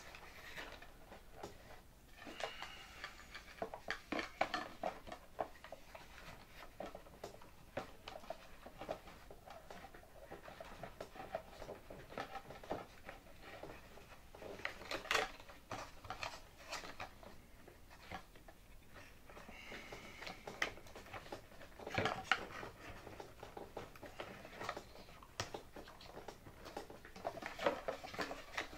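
Handling noise of a fuel tank being fitted into a model airplane fuselage: scattered light clicks, taps and rustles, with a few sharper knocks about halfway through and near the end.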